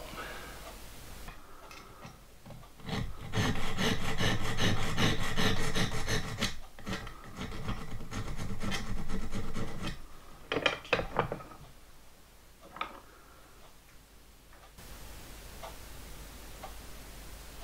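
Needle file rasping back and forth across a small metal valve-gear lifting link held in a vise, filing a radius on its end: a steady run of strokes for several seconds, followed by a few light clicks.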